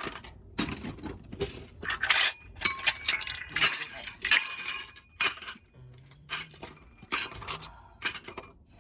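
Metal hand tools and parts clinking and clattering together as they are picked up and gathered, a quick run of sharp knocks with brief metallic ringing, busiest in the middle.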